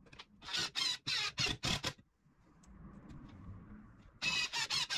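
DeWalt XR brushless cordless impact driver driving a screw into a pine post, run in a string of short trigger bursts for the first couple of seconds, then again from just past four seconds in.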